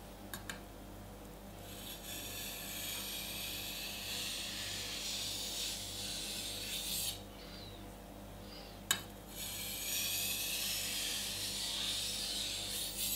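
Global stainless-steel chef's knife ground back and forth on a whetstone: a steady scraping grind in two stretches of about five and four seconds, with a sharp click between them.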